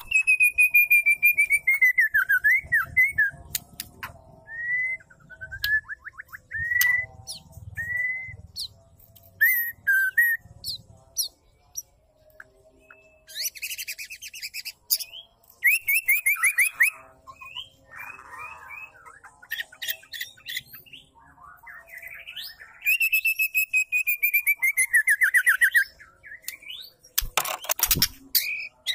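Female white-rumped shama calling: clear whistled notes, two fast runs of repeated notes, and many sharp clicks in between.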